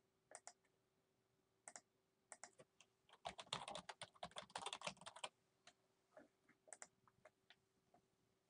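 Quiet typing on a computer keyboard: a few scattered keystrokes, then a quick run of keys from about three to five seconds in, and a few more keystrokes after.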